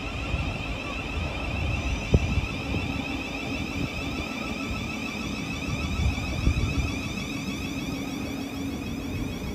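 Electric passenger train giving off a steady electrical whine over a low rumble, with a single knock about two seconds in.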